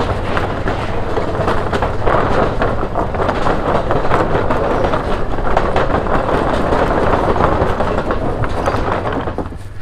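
Wooden deck planks of a steel-framed suspension bridge rattling and clattering continuously under a motorcycle's tyres, over the low hum of its engine.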